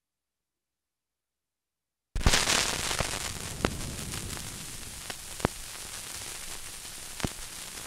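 Silence for about two seconds, then a stylus on a worn, banged-up vinyl LP in the lead-in groove: steady crackle and hiss with a loud pop repeating about every two seconds, once per turn of the record, the mark of a scratched disc.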